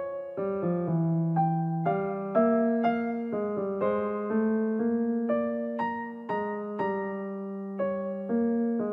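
Background piano music: a slow, gentle melody of single notes over held chords, each note struck and then fading.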